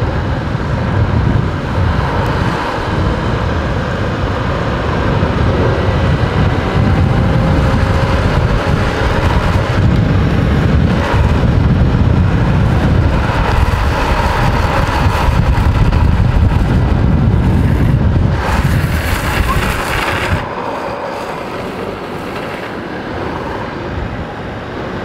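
Wind buffeting the microphone over a steady low road rumble at downhill speed. About three-quarters of the way through comes a louder hiss lasting about two seconds, after which the rumble drops away and the sound goes quieter.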